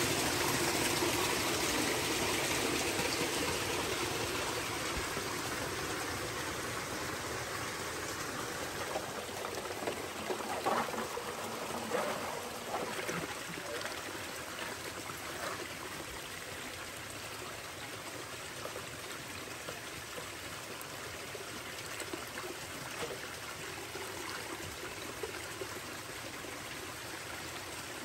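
Spring water running and trickling over rocks and through a catch box's stainless steel mesh plates, pouring off its outlet. A steady flow, slightly louder at first, with a few faint knocks partway through.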